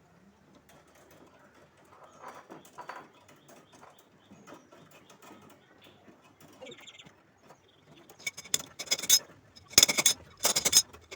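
Metal tool handling on refrigeration copper pipe: faint clicks and small knocks, then from about eight seconds in, several short, loud metallic scraping bursts as the swaging tool works the 1/4-inch pipe end.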